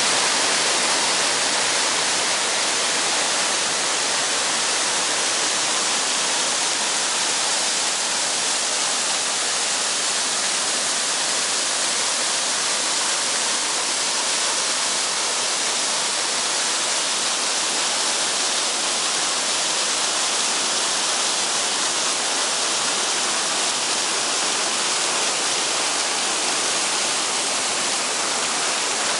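Tvindefossen waterfall, heard close up: water pouring and splashing down stepped rock ledges, a steady rushing hiss that does not let up.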